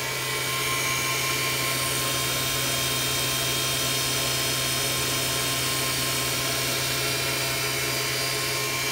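Converted Grizzly G0704 mill's belt-driven spindle commanded to 4,000 RPM in reverse, coming up to speed in the first second and then running steadily with an even hum and whine and no rattles.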